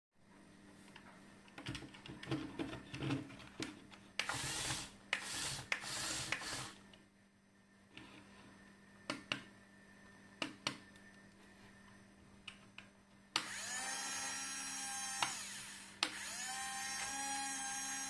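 Small electric gear motors of a 1:24-scale RC toy bulldozer whining steadily as they drive its tracks, in two runs in the second half. The first half holds scattered plastic clicks and a few short hissing bursts.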